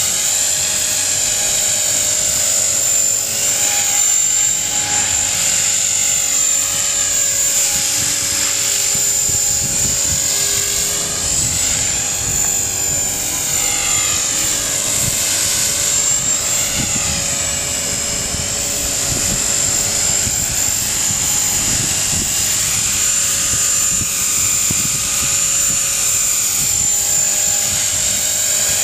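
Electric T-Rex 450-class clone RC helicopter in flight: a steady high whine from the brushless motor and gears over the whir of the rotor blades. The pitch swings up and down repeatedly as the helicopter manoeuvres.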